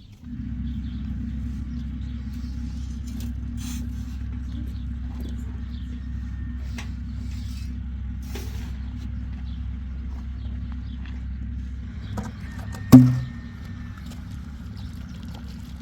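An engine starts up abruptly and runs with a steady low rumble. About thirteen seconds in there is one sharp, loud knock.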